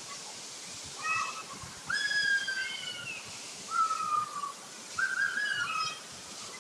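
A run of four clear whistled notes, each held about half a second to a second and sliding slightly down in pitch, over the steady hiss of a waterfall.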